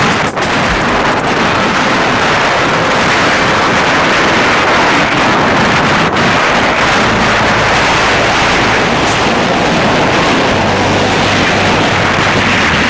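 Wind rushing over the microphone of a moving vehicle, with road and engine noise beneath: a loud, steady rushing noise. A low steady hum joins in near the end.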